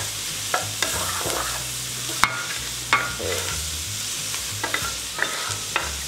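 Diced vegetables, garlic, ginger and curry spices sizzling in a stainless steel pan as a spoon stirs them, scraping and clicking against the pan, with one sharper knock about two seconds in. The aromatics and spices are being fried as the base of a curry sauce.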